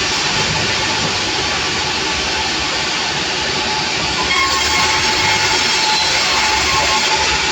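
Sawmill machinery running steadily: a loud continuous mechanical noise with a faint steady whine, unbroken throughout.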